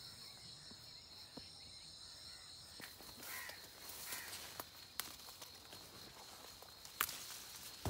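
Leaves rustling and brushing against the camera as it is pushed in among peach tree branches, with a few sharp clicks, the loudest about seven seconds in. A steady high-pitched drone cuts off suddenly about three seconds in.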